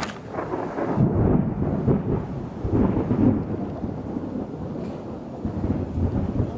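Thunder of an approaching storm rumbling in long rolls, swelling about a second in and again around three seconds, then fading.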